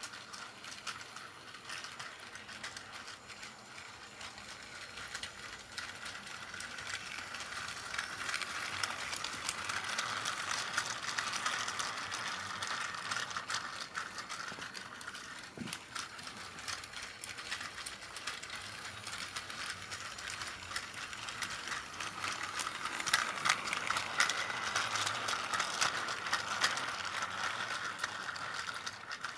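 Plarail C12 steam locomotive toy's small motor and gearbox whirring, with a fine clicking rattle, as it hauls five container wagons round plastic track. It grows louder twice as the train passes close by.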